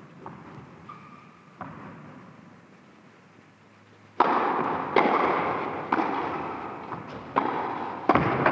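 Tennis rally in a large indoor hall: a run of sharp racket-on-ball hits, roughly one a second, each ringing in the hall, beginning about four seconds in after a few faint ball knocks.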